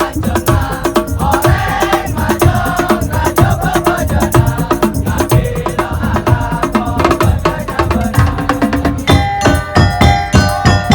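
Madurese tong-tong music: fast, dense wood-block and drum percussion under a wavering melody. About nine seconds in, held keyboard notes come in over the beat.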